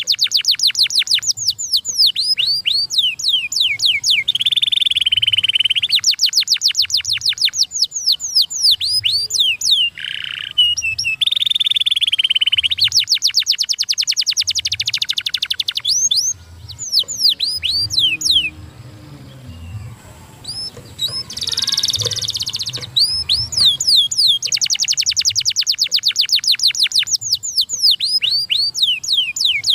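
Domestic canary singing: fast trills of rapidly repeated falling notes alternating with buzzy rolls, with a softer stretch past the middle before the trills resume.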